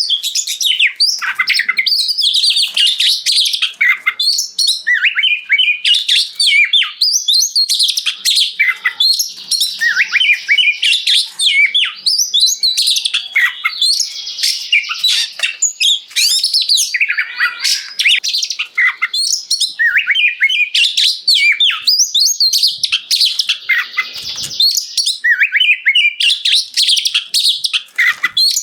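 Oriental magpie-robin (kacer) singing vigorously: a nearly unbroken stream of rapid, varied whistles, chirps and trills, broken only by brief pauses.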